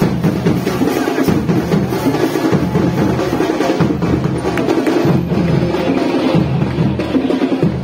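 Loud, fast drumming: drums beating a dense, driving rhythm.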